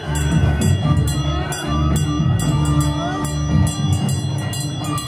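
Loud festival music: heavy pounding drums with sharp strikes about four times a second and a steady held tone underneath, with voices from the crowd mixed in.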